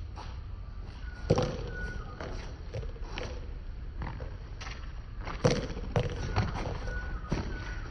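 A Chinese handball rally: a small rubber ball slapped by open hands and bouncing off a concrete wall and court, heard as a series of sharp, irregular smacks, the loudest about a second in and again near the middle. A steady low rumble lies under them.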